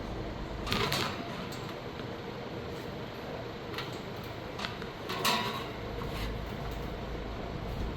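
Steady whir of electric fans running, with a few short knocks and rattles of handling. The loudest come about a second in and about five seconds in.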